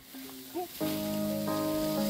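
Hamburger patties sizzling on a portable propane grill, a soft even hiss. A little under a second in, background music with held notes comes in over it and becomes the louder sound.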